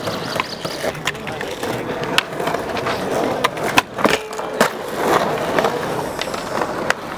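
Skateboard wheels rolling on smooth concrete, with a few sharp wooden clacks of the board, loudest in a cluster around the middle as it pops and lands at a metal rail.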